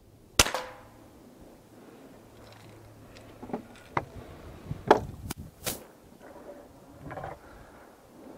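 A modified pre-1975 Crosman 760 pump air rifle fires once with a sharp crack, followed by a brief ring. A few seconds later come several knocks and clicks as the rifle is handled and laid on a wooden bench.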